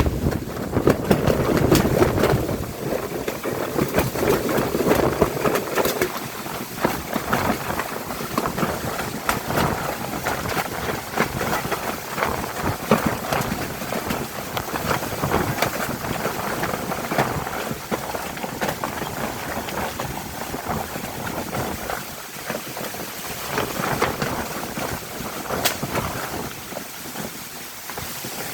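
Strong gusting wind of a summer thunderstorm, buffeting the microphone, with many sharp crackles through it. It is strongest in the first few seconds and eases somewhat near the end.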